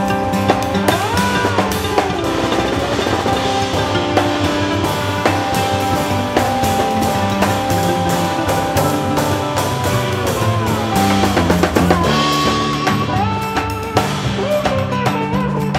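Live instrumental band of oud, lap steel guitar, upright bass and drum kit playing, with held notes that slide up and down in pitch over a steady drum beat.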